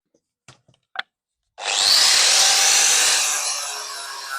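Angle grinder with a flap disc sanding pallet wood: a couple of light knocks, then about a second and a half in the grinder comes on with a sudden, loud, harsh abrasive noise that fades gradually toward the end.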